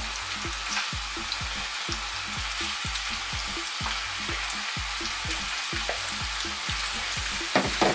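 Raw pork short ribs sizzling as they are laid into hot oil in a non-stick griddle pan, a steady frying hiss. A couple of sharp knocks come near the end.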